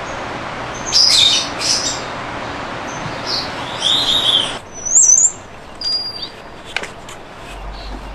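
Birds chirping: a handful of short, high-pitched chirps and one warbling whistle, over a steady hiss that drops away about halfway through, with a sharp click near the end.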